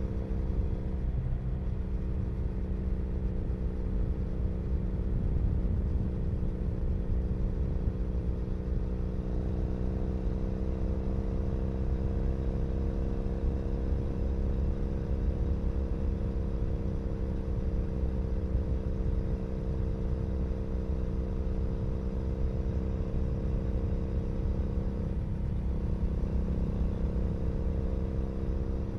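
Exhaust note of a 2012 Triumph Bonneville SE's 865 cc parallel twin through a British Customs Predator exhaust, recorded close at the pipe, running steadily at cruising speed. The note rises gently about a third of the way through and shifts again near the end.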